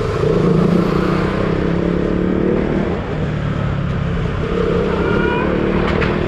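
KTM Duke motorcycle's single-cylinder engine heard from the rider's seat, under throttle at low speed; its pitch climbs just after the start, holds steady, then climbs again near the end as the rider accelerates.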